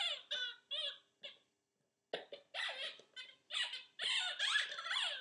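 Squeaky dog toy squeaking again and again as a puppy plays with it: short, high-pitched squeaks in quick runs, a brief pause a little after one second in, then squeaking almost without a break.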